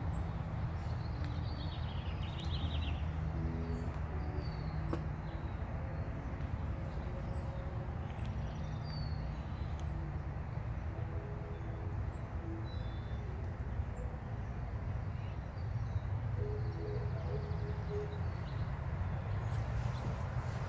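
Open-air background noise with a steady low rumble, and small birds chirping now and then, with a short run of chirps about two to three seconds in.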